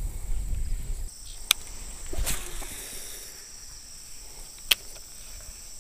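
Steady high buzzing of insects such as crickets, with wind rumbling on the microphone for about the first second. Two sharp clicks come through, about a second and a half in and near the end, fitting the baitcasting reel being cast and re-engaged.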